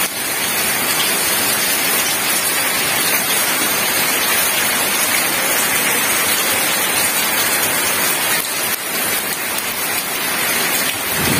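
Heavy rain falling steadily on wet paved ground, a continuous even hiss.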